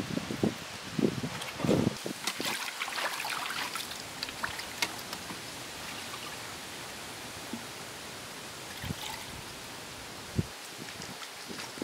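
Pond water trickling and splashing as a plastic pot is dipped in and filled, with a few dull knocks in the first couple of seconds.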